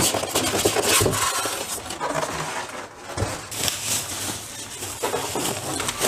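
Packaging being handled: a polystyrene foam packing insert scraping against the cardboard box as it is lifted out, then, about halfway through, a thin plastic bag rustling and crinkling as it is pulled open. Irregular, with many short crackly strokes.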